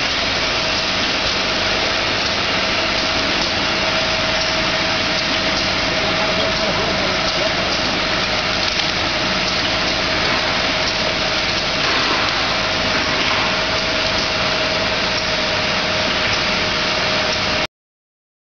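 Automatic eye-drop filling machine running: a steady mechanical hum and whir with one constant tone through it, cutting off abruptly near the end.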